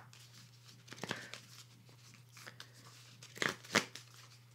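Oracle cards being handled in the hands: a few short rustles and taps of card stock, the loudest pair near the end, over a steady low hum.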